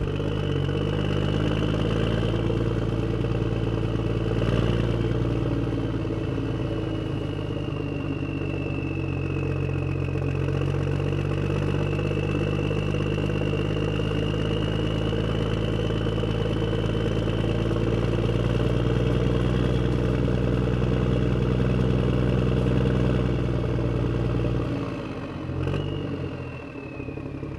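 A motor running steadily, with a deep even hum and a faint high whine that drifts slowly in pitch; it falls away and changes about 25 seconds in.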